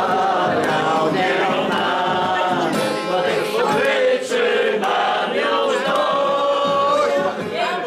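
A group of people singing a song together, several voices holding long notes.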